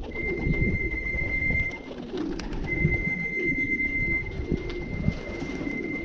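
Racing pigeons cooing at the loft. A steady high tone sounds for about two seconds at the start and again from about three seconds on.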